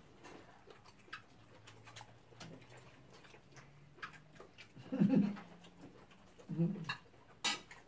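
Eating sounds at a dinner table: faint clicks of cutlery and plates, with short low closed-mouth "mm" hums of enjoyment about five and six and a half seconds in, and a sharp click of a utensil or dish near the end.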